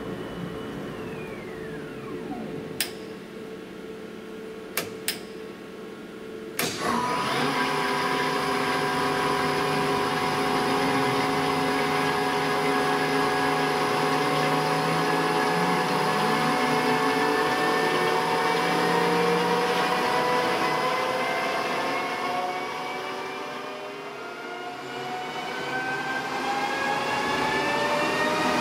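Style 410 CNC lathe spindle and chuck. A whine falls away near the start and a few sharp clicks follow. About a quarter of the way in, after a click, the spindle runs up with a loud steady machine whine of several tones that rise in pitch as the speed climbs, sag briefly, then rise again near the end.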